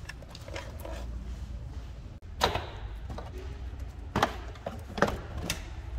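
Soft rustling of a cloth fender cover, then sharp hard-plastic knocks and pops as the Mercedes CLA's engine cover is worked off its mounts: one about two and a half seconds in and three more in the last two seconds.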